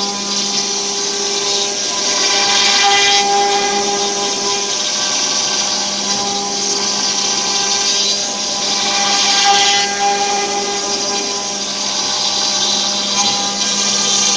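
CNC router spindle milling a pocket into a wooden board with an end-mill bit: a steady whine under a hissy cutting noise, which swells twice as the bit moves through the wood.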